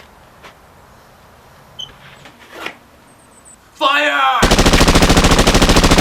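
A shout of "Fire!", then rapid automatic gunfire: a loud, fast, evenly spaced machine-gun rattle that starts about four seconds in and keeps going.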